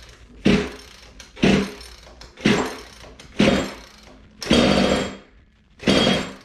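Zenoah G300PUM two-stroke engine on a Goped being pull-started: the recoil starter is yanked about once a second, six pulls, each a short whirring crank of the engine, the one near the middle a little longer. The freshly primed engine does not keep running between pulls.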